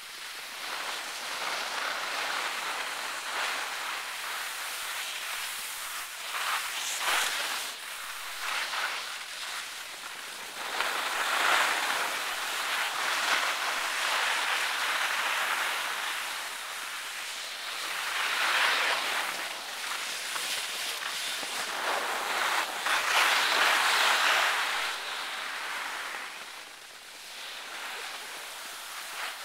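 Skis hissing and scraping over packed snow on a downhill run, the noise swelling and fading in several long waves as the skier turns.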